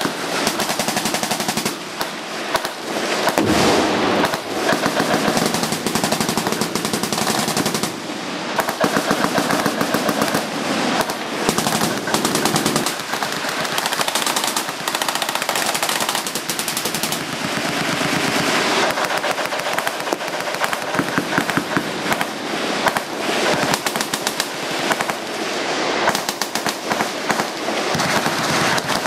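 Many machine guns firing at once: a continuous, overlapping barrage of rapid automatic fire, with bursts starting and stopping throughout.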